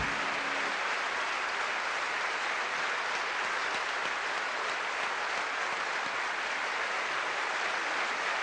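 A large audience applauding steadily. In the first second the ensemble's last held note dies away under the clapping.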